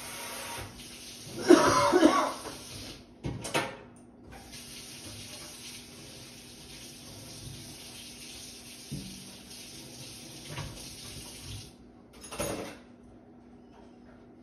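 A tap running steadily, shut off about three seconds before the end. There is a louder burst about a second and a half in and a few short knocks.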